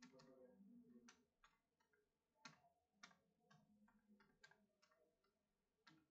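Faint, irregular keystrokes on a computer keyboard, typing out a web address.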